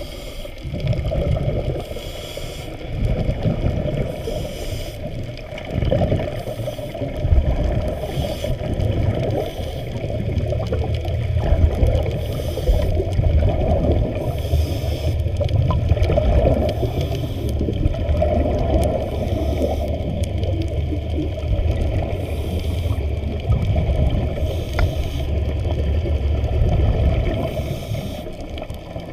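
Water movement heard underwater through a camera housing: a steady, muffled low rumble, with a faint hiss that swells about every two seconds.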